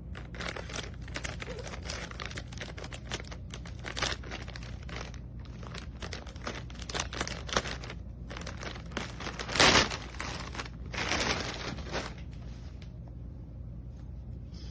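Packaging crinkling and rustling as it is handled, in many short bursts, with one louder crackle a little before ten seconds in, quieter over the last few seconds; a steady low hum underneath.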